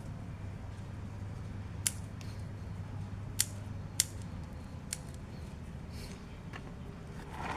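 Bonsai pruning shears snipping branches off a kimeng ficus, four sharp cuts a second or so apart, over a steady low hum.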